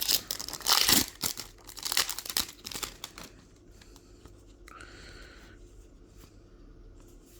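Foil Pokémon booster pack being torn open and crinkled, loud and crackly for the first three seconds, then quieter, with a brief soft swish about five seconds in.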